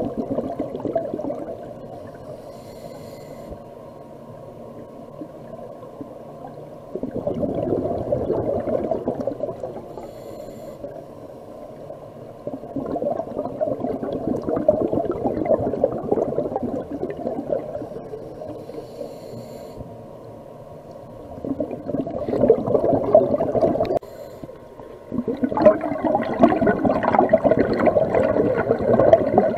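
Scuba diver's regulator breathing recorded underwater: four long bubbling exhalations, each a few seconds long, with quieter gaps between them for the inhalations.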